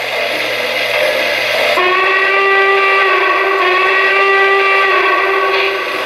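Model steam locomotive's electronic sound system blowing a multi-tone steam whistle: one long blast with a short break in the middle, starting about two seconds in. It plays over the steady running noise of the model trains on the track.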